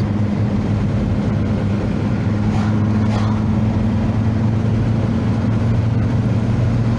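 Steady engine drone and tyre and road noise inside a moving car's cabin, a constant low hum.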